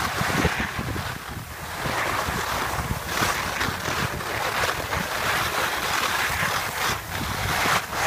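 Skis scraping and hissing over icy, hard-packed snow, swelling and fading with each turn, over wind buffeting the phone's microphone.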